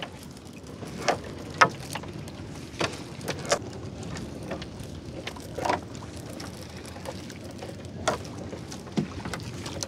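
Wet gill net being hauled by hand over the side of a small wooden boat: water splashing and dripping off the mesh, with scattered short splashes and knocks every second or two over a steady low wash.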